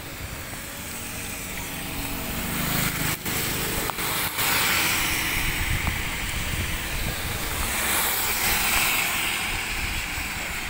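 Heavy rain and the wet-road noise of a moving motorcycle: a steady hiss with a low rumble beneath it, growing louder about two seconds in.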